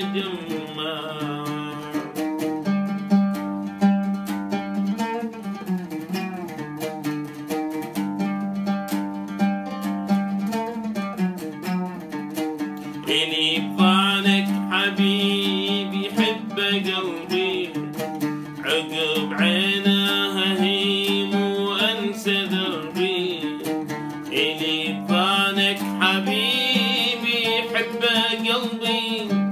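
An oud played solo, with plucked notes throughout, accompanying a man singing in Arabic. The singing is strongest from about halfway in, in long held, bending lines.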